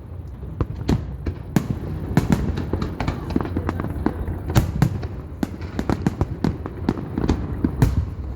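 Fireworks display going off, with a rapid, irregular series of bangs and crackles layered over a continuous low rumble.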